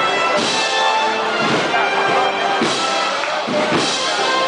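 Brass band playing a slow processional march, held brass notes over a drum beat roughly once a second.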